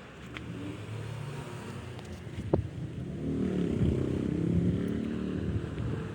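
A motor vehicle's engine running, getting louder about three seconds in, with a single sharp click just before.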